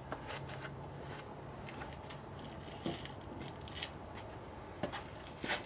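Faint scattered clicks and rustles over low background noise, with a few sharper ticks near the middle and end.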